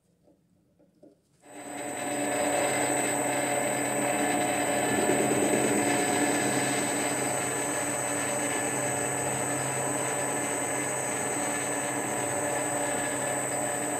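Warco 280V metal lathe switched on about a second and a half in, then running steadily, its motor and spindle giving a constant hum with a steady high whine.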